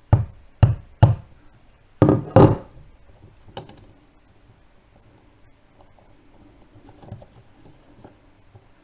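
Hammer tapping the end of a tiny flathead screwdriver five times in the first two and a half seconds, driving its blade under the lip of a watch case back to pry the back off. A few faint clicks of handling the watch follow.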